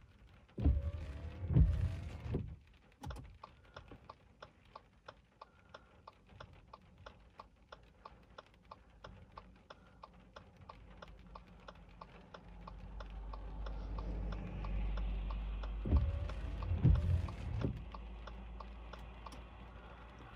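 A low thunder rumble swells from about twelve seconds in and fades near the end. Under it runs a steady patter of raindrops tapping. Two clusters of heavy thumps come near the start and about sixteen seconds in.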